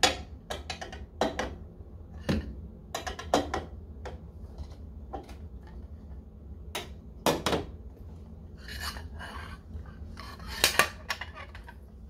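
Metal parts of a doorway pull-up bar clinking and knocking against the door-frame bracket as they are fitted. The sharp clicks and clacks come at irregular moments, and the loudest fall at the start and near the end.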